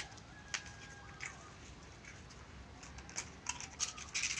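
Dogs chewing krupuk (Indonesian crackers): a scatter of short, crisp crunches, coming thicker near the end.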